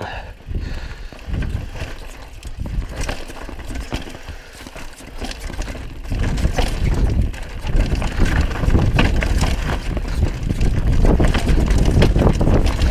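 Mountain bike descending a rocky trail: tyres rolling and crunching over dirt and rock while the bike clatters and rattles over bumps, with wind rumbling on the microphone. It gets louder and rougher about six seconds in, as the trail turns to broken rock.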